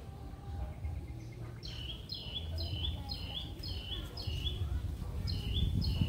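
A bird calling a quick series of short, high, downward-hooking chirps, about two a second, starting a couple of seconds in, over a low steady rumble.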